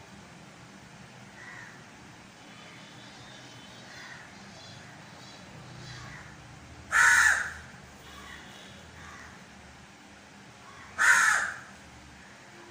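A crow cawing: two loud, harsh single caws about four seconds apart, with fainter calls between them.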